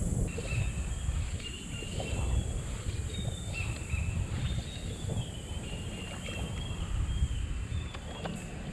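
Wind and water noise around a kayak: an uneven low rumble on the microphone and water lapping at the hull. Faint, short high-pitched chirps come and go throughout.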